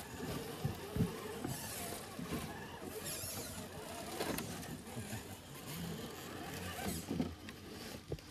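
Small electric motors and gearboxes of tiny-scale RC crawler trucks whining, rising and falling in pitch as they are throttled over a log and dirt trail, with a few knocks, the sharpest about a second in.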